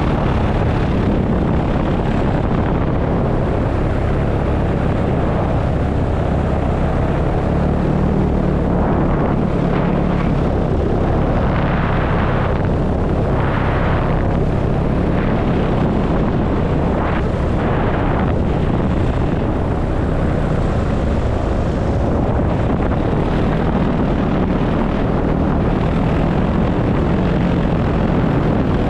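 Paramotor engine and propeller running steadily in flight, with wind rushing over the microphone. The rush swells a few times around the middle.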